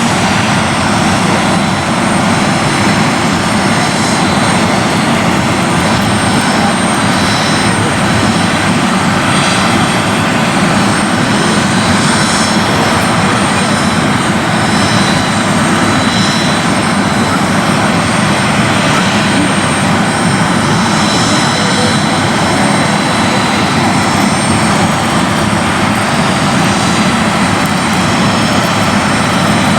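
Airliner jet engines running steadily: a loud, unbroken rush with a thin high whine held on top.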